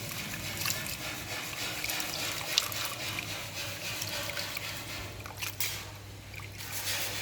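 Water trickling and dripping, with scattered small clicks and a faint low steady hum underneath.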